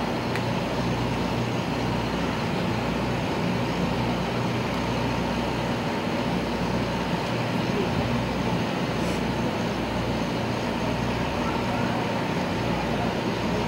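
Steady outdoor city rumble of running engines and traffic noise, with a faint steady hum.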